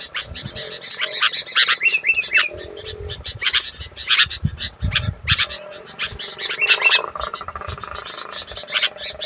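Sooty-headed bulbuls calling loudly: a dense run of short, sharp chattering notes mixed with quick rising-and-falling whistled phrases, with a few low thumps about halfway through.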